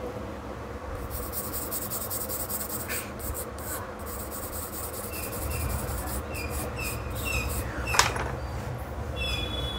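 Steady low hum with an airy hiss of bench equipment running, a few short high-pitched beeps in the second half, and a sharp click about eight seconds in.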